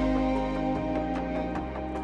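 Background music: held notes with a quick, light run of plucked notes over them.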